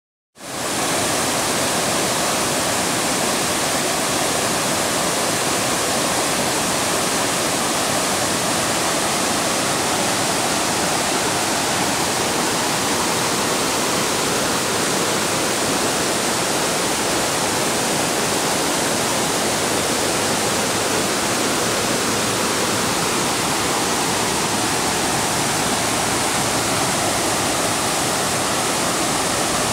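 Bald River Falls, a mountain waterfall, pouring down a broad rock face: a steady, dense rush of falling water that fades in quickly about half a second in.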